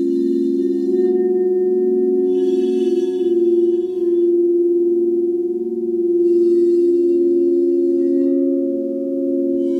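Crystal singing bowls ringing together in sustained, overlapping tones that waver slowly. A brighter shimmer rises over them three times, each lasting a second or two.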